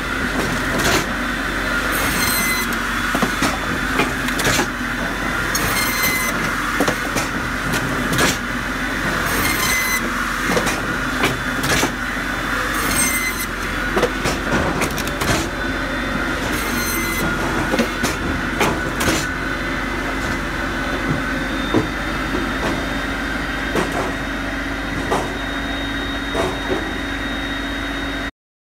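Posch SpaltFix S-375 firewood processor running, a steady machine drone with frequent knocks and clatter of wood. Short bursts of high-pitched noise come every three or four seconds, and these fade out about two-thirds of the way through.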